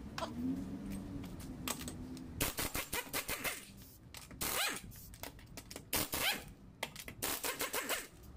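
Pneumatic impact wrench hammering in several short bursts as it undoes the wheel nuts, starting about two seconds in.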